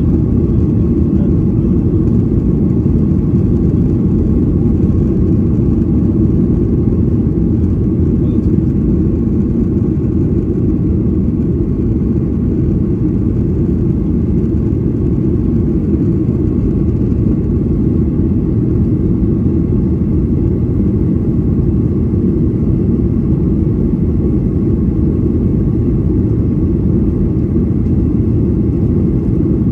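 Steady low drone inside the cabin of a Boeing 737-800 climbing out after takeoff: its CFM56-7B engines at climb power and air rushing past the fuselage, even throughout.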